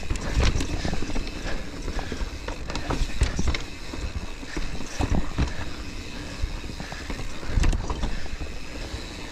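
Mountain bike clattering over rocks and roots on a rough descent: irregular sharp knocks and rattles from the bike, over a constant deep rumble.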